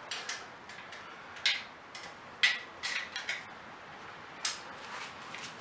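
Steel tire pad arms of a Pittsburgh riding mower/ATV lift jack being slid out and repositioned by hand: a scatter of light metal clicks with a few sharper clanks, the loudest about halfway through.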